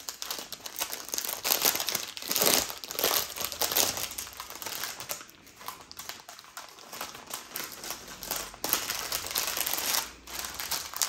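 Small plastic zip baggies of diamond-painting drills crinkling and rustling as a bundle of them is handled, with a brief lull near the end.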